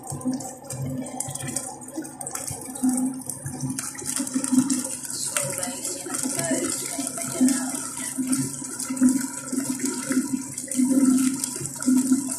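Thick tomato sauce with sardines simmering in a stainless steel pot, bubbling with irregular soft pops over a steady hiss; the hiss grows stronger about four seconds in.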